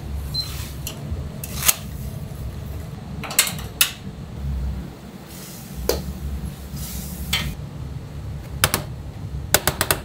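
Kitchen clatter: about eight sharp clinks and knocks of bowls, pots and utensils, spaced irregularly with a quick cluster near the end, over a steady low hum.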